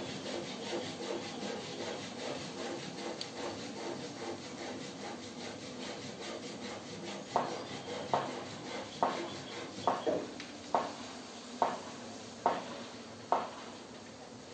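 Steady scraping, then from about halfway through a run of sharp knocks, a little under a second apart.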